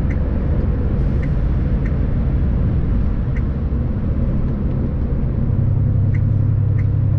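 Heavy lorry driving, heard from inside the cab: a steady low engine and road rumble that grows louder about five and a half seconds in as the engine pulls harder, with a few faint light ticks.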